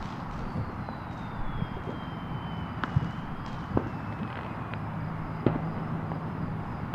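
Distant fireworks going off: several scattered sharp pops over a steady background rumble, with a faint thin whistle slowly falling in pitch.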